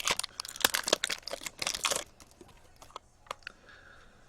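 Foil trading-card pack wrappers crinkling and tearing as packs are opened, a dense crackle for about two seconds that then drops to a few faint clicks of cards being handled.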